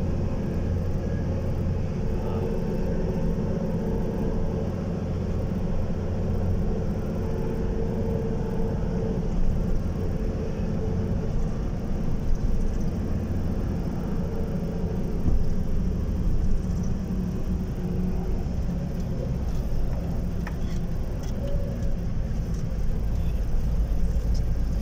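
Car driving along, heard from inside the cabin: a steady low rumble of engine and road noise.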